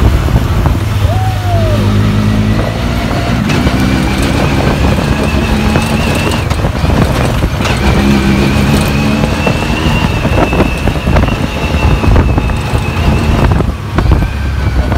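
Side-by-side UTV engine running at a steady pace over a sandy trail, heard from the open cab, with jolts and rattles of the ride throughout. A steady high whine sits over it through most of the clip.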